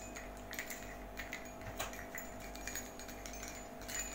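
Small bells and beads on a cotton door hanging clicking and tinkling lightly as it is handled, a scatter of faint irregular ticks with a few brief high rings.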